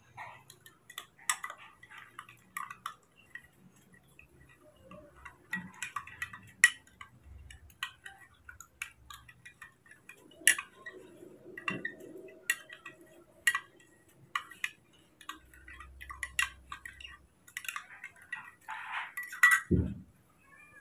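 Metal spoon clinking against a drinking glass as milk is stirred, in sharp, irregular clinks, with a dull knock near the end.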